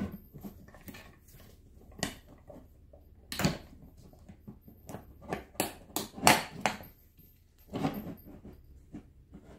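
Steel drum brake shoes, self-adjuster and spring hardware clinking and knocking as they are wedged together by hand, in irregular short strokes, with a cluster of louder knocks a little past the middle.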